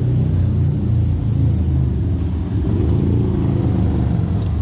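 Can-Am Maverick X3 Turbo RR's turbocharged three-cylinder engine idling steadily, its pitch rising slightly and settling again about halfway through.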